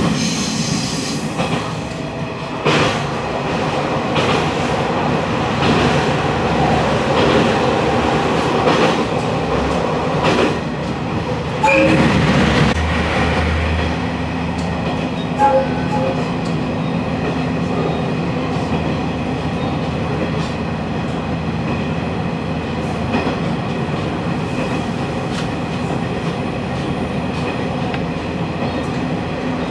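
Diesel railcar running along the line, heard from on board: a steady rumble of wheels and running gear with wheels clicking over rail joints. About twelve seconds in there is a louder stretch, and after it a steady engine hum comes in.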